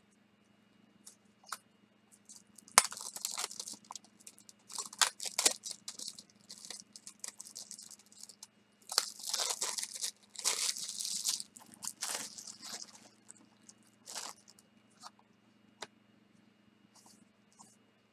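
Small product package being torn open and crinkled by hand, with a sharp snap about three seconds in, then irregular bursts of tearing and rustling that die away after about thirteen seconds.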